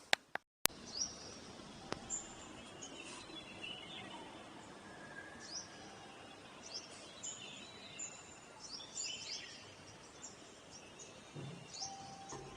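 Small birds chirping with many short, sharp high notes over a faint steady background hiss, with a single click about half a second in.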